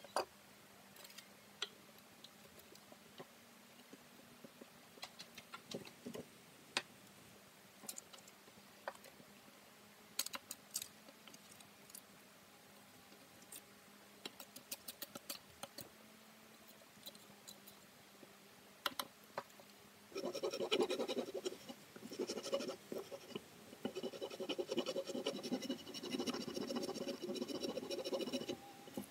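Bark being peeled and snapped off freshly cut branches by hand: scattered cracks and snaps. About two-thirds of the way in this gives way to continuous scraping as bark is scraped from the wood with a hand tool.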